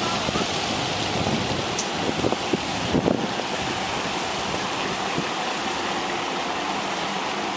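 Steady splashing of a pond fountain, an even rushing of falling water, with a few faint knocks.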